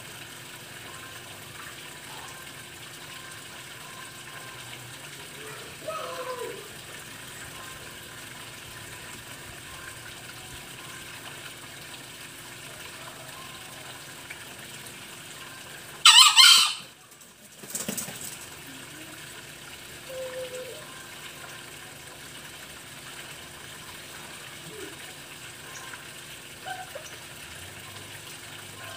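Green junglefowl crowing once, a short, high, raspy crow about sixteen seconds in. A few soft short calls come before and after it over a steady low hum.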